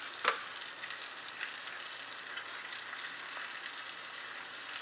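Flour-dredged slices of venison heart sizzling and crackling steadily in bacon grease in a frying pan over medium-high heat. There is a single sharp tap about a third of a second in.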